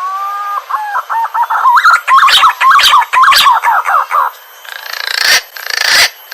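Green pigeon (punai) calling: a couple of long level whistles that run into fast warbling whistles rising and falling in pitch, followed by a few harsh noisy bursts near the end.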